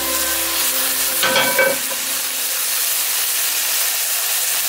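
Propane camp-stove burner hissing steadily under a cast iron skillet. The skillet scrapes briefly on the burner grate a little over a second in.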